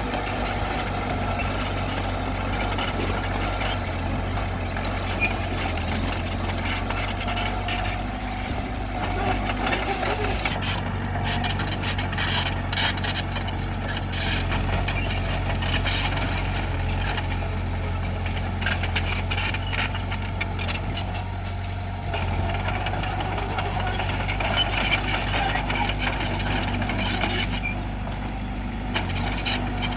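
Bulldozer's heavy diesel engine running steadily under load, with frequent clanks and clatter of metal tracks and rock.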